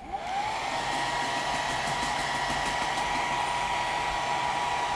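Handheld hot-air blower switched on: its motor whine rises quickly to a steady pitch in the first half second, then runs steadily over a rushing hiss of air. It is heating a phone's back glass to soften the adhesive.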